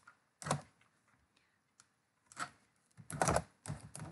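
Typing on a computer keyboard: a few separate keystrokes, then a quick run of keys about three seconds in.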